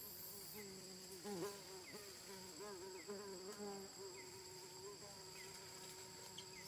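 Insect chorus: a steady high-pitched drone of insects, with a fainter wavering lower-pitched sound beneath it.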